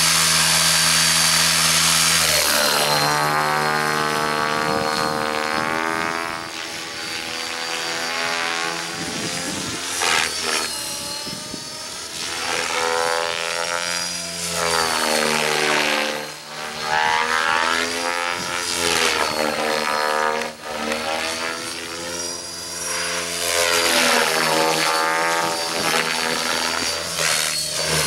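Align T-Rex 600E Pro electric RC helicopter flying 3D manoeuvres: steady rotor and motor hum at first, then the pitch sweeps up and down and the sound swells and fades as it swoops and passes.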